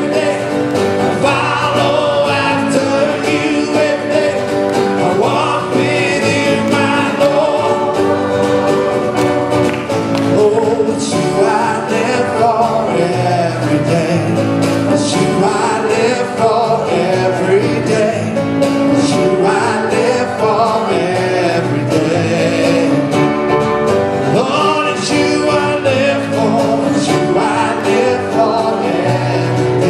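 Live worship band playing a song: singers at microphones over drums, guitar and keyboard, with a steady beat.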